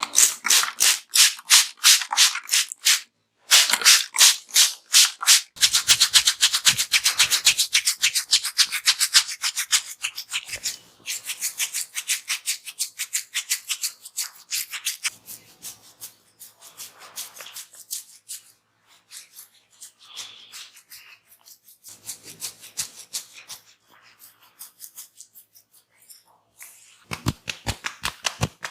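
Hands working on a head during a head massage: brisk rhythmic strikes at about four a second, then steady rubbing of hands over hair and skin that grows softer, with brisk strikes again near the end.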